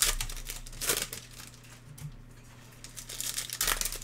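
Foil trading-card pack wrappers crinkling as packs are handled and opened and cards are pulled out, in a few loud crinkles right at the start, about a second in and again near the end.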